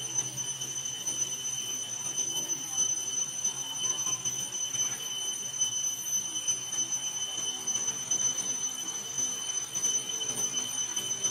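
Steady high-pitched insect drone from cicadas in the trees, holding one unbroken pitch with a fainter overtone above it.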